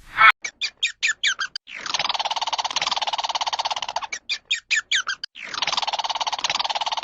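A bird calling: a quick run of short sweeping chirps, then a long rapid trill; the pattern repeats, the second trill starting about halfway through.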